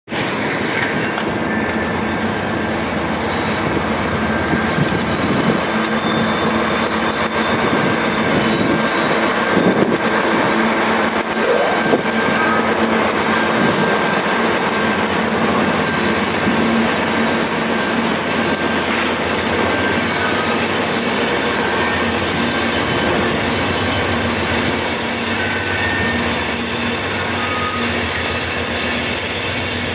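Diesel freight locomotives running as they pass, then a string of covered hopper cars rolling by. The steel wheels squeal thinly and clack over the rails. The sound builds over the first several seconds and then holds steady.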